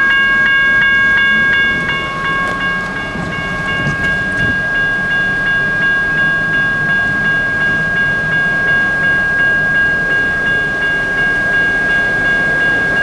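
A steady high electronic tone, several pitches sounding together. It pulses quickly for about the first two seconds and then holds steady, over a rough rumble of wind and rain.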